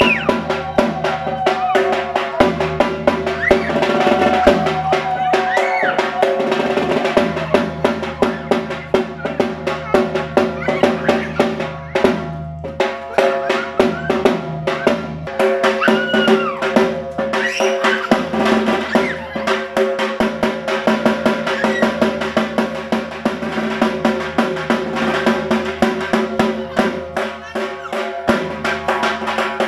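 Dhak drums beaten in fast, unbroken rolls, the ritual drumming of Durga Puja worship, over a steady drone of held tones. The rolls ease off briefly about twelve seconds in.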